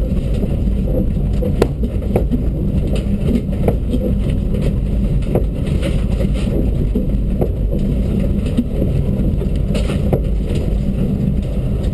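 Rally-prepared Dacia Duster driving over a rough, bumpy off-road track, heard from inside the cabin: a steady engine and road drone with frequent short knocks and rattles from the uneven surface.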